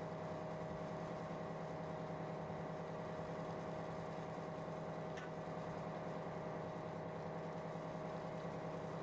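Cargo ship's diesel engine running under way, a steady low hum with a few held tones above it. A faint tick about five seconds in.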